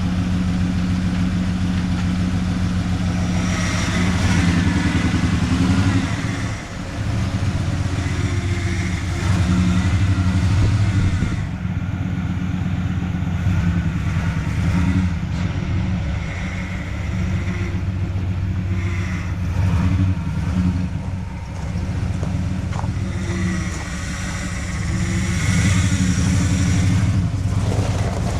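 1994 Ford Bronco's V8 engine running steadily, its note swelling slightly several times, about four, nine and twenty-six seconds in.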